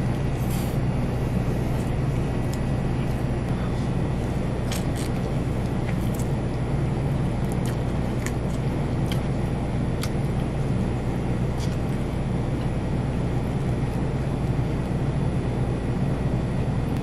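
Steady low background hum, dotted with scattered faint clicks and crunches of fried chicken being bitten and chewed.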